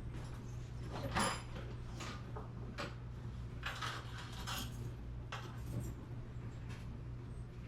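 Hand tools clinking and tapping against a garage door's steel torsion hardware as the cable drum set screws are tightened: a series of short metallic clicks and clanks, the loudest about a second in with a brief ring. A steady low hum runs underneath.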